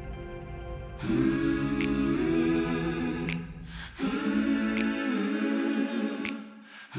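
Soundtrack music of wordless, choir-like singing: two long phrases of held chords, each about three seconds, with a light tick roughly every second and a half. It comes in quietly and swells about a second in.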